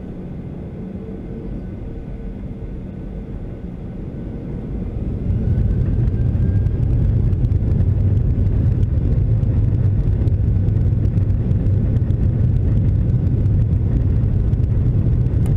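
Boeing 737-800's CFM56 turbofan engines heard from inside the cabin, running at low power and then spooling up about five seconds in, with a brief rising whine, to a much louder, steady low rumble at take-off thrust as the take-off roll begins.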